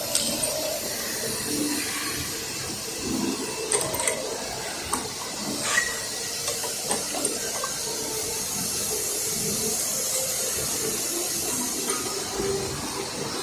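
Steady hissing background noise, with a few light clicks and knocks scattered through it.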